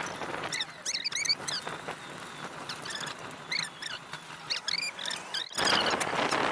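Dog whining in a string of short, high-pitched squeaks. About five seconds in, the squeaks give way to a sudden, louder steady rush of noise.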